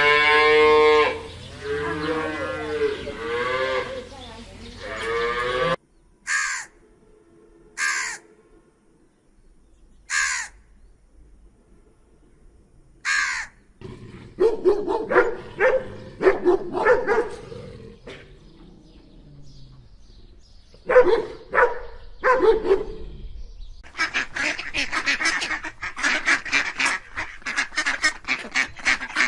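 A sequence of animal calls. A cow moos in a long drawn-out call, then come four short, separate harsh cries. From about halfway through, geese honk in bursts, growing into many rapid overlapping honks near the end.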